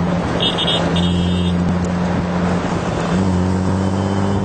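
Motor vehicle engine running steadily under road and wind noise, its note getting fuller about three seconds in, as if under more throttle.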